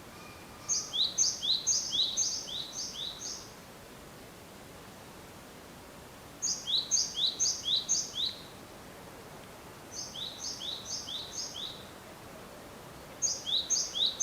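A songbird singing a high two-note figure, the first note higher than the second, repeated four to six times in quick succession; the phrase comes four times with pauses of a few seconds between, the last starting near the end. A faint steady hiss of open-air background lies under it.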